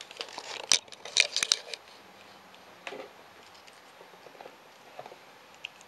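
A steel-cased wristwatch with a leather strap being handled: a cluster of sharp clicks and rustles in the first second and a half, then a few faint clicks.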